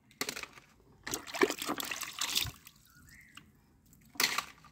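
Water splashing and sloshing in a tub as toys are dipped and rinsed by hand, in irregular bursts: a short splash at the start, a longer stretch of sloshing about a second in, and another splash near the end.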